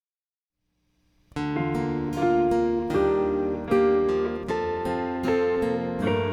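Near silence, then about a second in an acoustic guitar starts playing a song introduction: steady, evenly spaced strummed chords.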